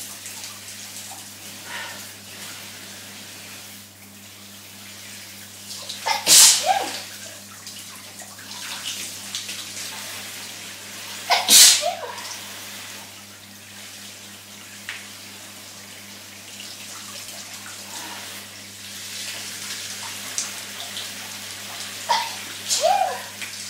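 Two loud sneezes, about five seconds apart, over the steady hiss of a running shower. A few shorter, softer sounds come near the end.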